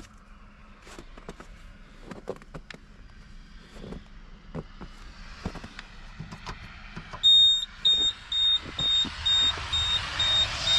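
Quiet scattered clicks and knocks, then, about seven seconds in, a wheeled farm robot starts beeping: a rapid, even run of high electronic beeps, with a rising rushing noise under it as it sets off in heavy snow.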